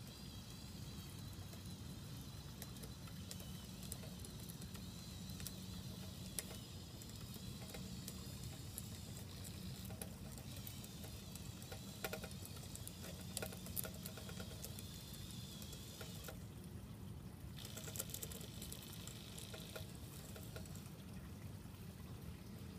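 Faint whine of a radio-controlled model crawler crane's small electric motors and gearing as it tracks along and swings its boom, with many light clicks. The whine drops out for a moment past the middle and then starts again.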